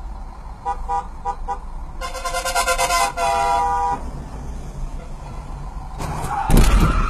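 Car horns honking in traffic: a few short toots about a second in, then a long held honk of over a second, with another horn after it. Near the end comes a loud, low, noisy thump and rumble.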